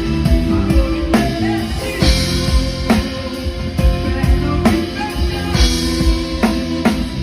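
Band music with drum kit, bass and guitar playing over a steady beat.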